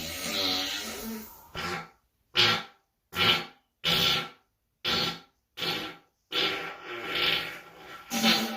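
A run of human farts, about nine in quick succession: most short and sputtering, the first and one near the end longer with a wavering pitch, with dead silence between them.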